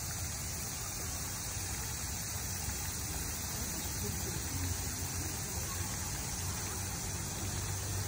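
Steady hiss and splash of a pond fountain's water spray, over a constant low rumble.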